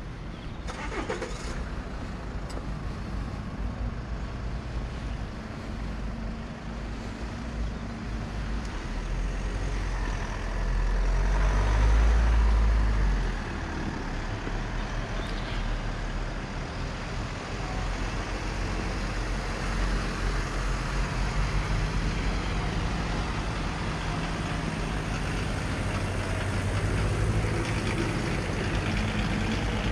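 Road traffic: a heavy vehicle's engine running, with a low rumble that swells louder for a few seconds around the middle.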